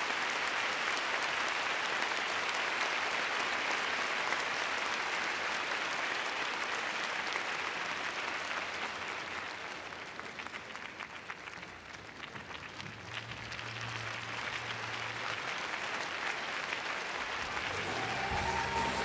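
Large arena audience applauding steadily. The clapping thins out about halfway through, then builds again, and music starts up near the end.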